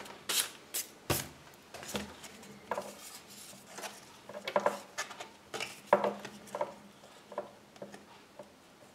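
Scattered light clicks, taps and rustles from trading cards and their foil packaging being handled on a table, at irregular intervals, the sharpest about a second in and about six seconds in.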